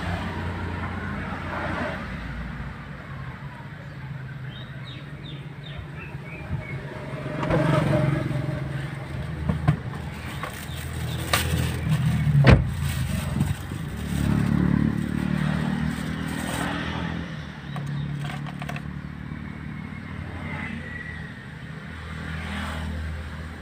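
Car engine and road noise heard from inside the cabin while driving, a steady low hum that swells now and then. A single sharp knock about twelve seconds in.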